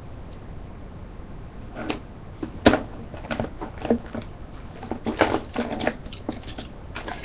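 Rummaging and handling of objects: a string of irregular knocks, clicks and rattles, with one sharp click a little under three seconds in.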